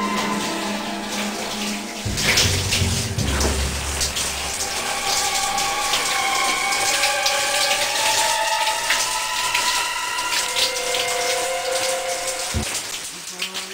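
Shower running: a steady spray of water, with slow held notes of background music over it. A low rumble comes in about two seconds in.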